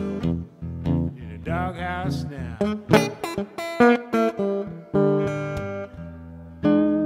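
Solo acoustic guitar playing a blues run of single picked notes, then a chord struck near the end and left ringing.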